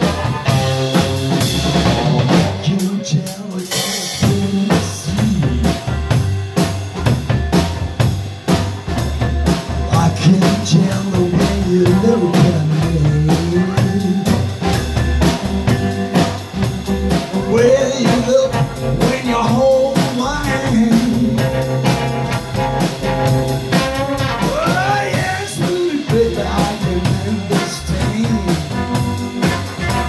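Blues band playing live: electric guitar, upright double bass and a drum kit keeping a steady beat, with a lead line at the frontman's microphone.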